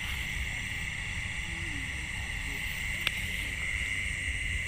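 Steady chorus of night insects, a continuous high trill, over a low rumble on the microphone, with one sharp click about three seconds in.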